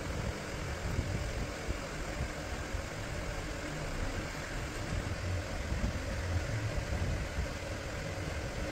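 Steady low rumble with a light hiss, unchanging throughout, with no distinct knocks or clicks.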